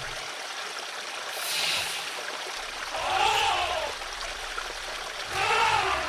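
A steady rushing noise like running water. Over it come two short calls that rise and fall in pitch, about three seconds in and near the end. A brief hiss sounds at about a second and a half.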